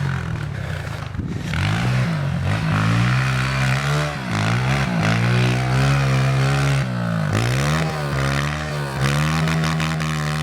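Dirt bike engine revving through snow, the pitch held high and then dropping and climbing back again several times as the throttle is worked.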